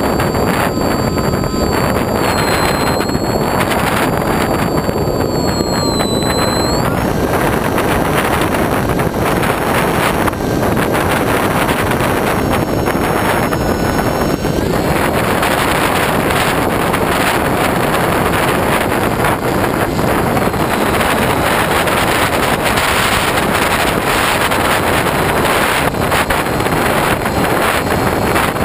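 Steady, loud wind rush over a GoPro riding on a Hobbyking Bixler RC model plane in flight. In the first half there is a faint high whine that shifts in pitch about six seconds in and fades out about halfway through.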